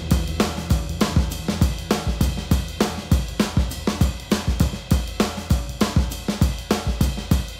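Background music with a steady drum-kit beat and a bass line.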